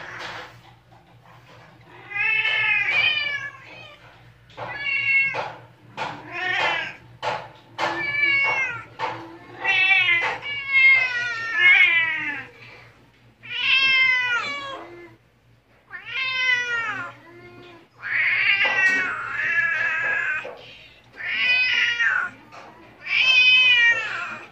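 Newborn Siamese kittens mewing: about a dozen high, wavering cries, one every second or two, each bending up and down in pitch.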